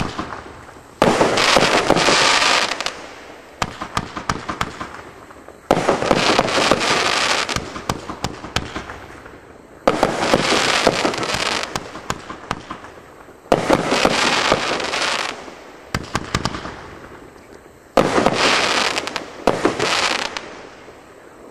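A Winda 'Swamp Gator' 20-shot consumer fireworks cake firing its shots in volleys a few seconds apart. Each volley opens sharply into dense crackling that fades over a second or two.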